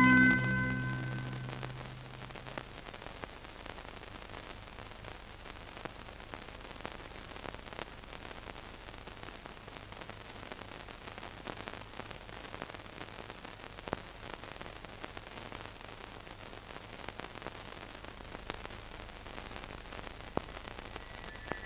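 Hiss and crackle of an old film soundtrack with a faint steady hum, with scattered clicks. A held, pitched music tone fades out in the first second or two.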